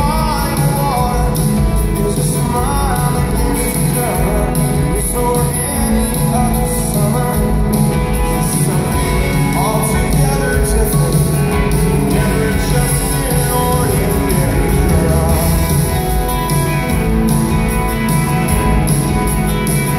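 Rock band playing live: guitars, drums and keyboards, with a man singing lead at times.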